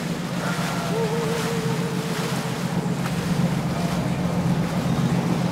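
Boat engine running steadily, with water rushing and wind on the microphone.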